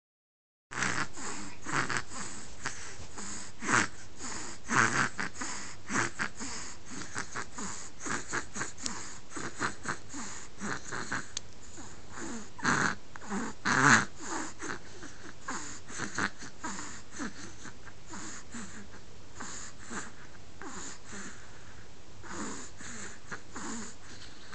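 Snoring: short, wheezy snorts and snuffles in quick, irregular succession. They are loudest about halfway through, then grow sparser and softer.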